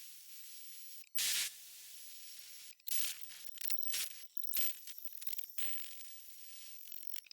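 Longmill CNC router carving a block of cherry: the spindle runs with a steady high hiss while the bit cuts in short, loud, rasping bursts, the loudest about a second in.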